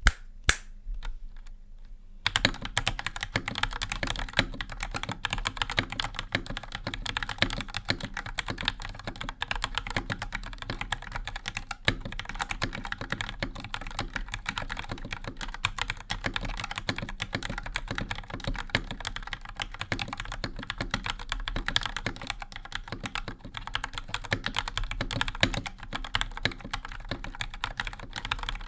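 Typing on a stock GamaKay LK67 mechanical keyboard with Gateron Milky Yellow Pro linear switches and thick PBT double-shot keycaps, a fast unbroken stream of keystrokes starting about two seconds in. The owner finds the stock sound pretty good but a bit hollow and too quiet, with slightly rattly stock stabilizers.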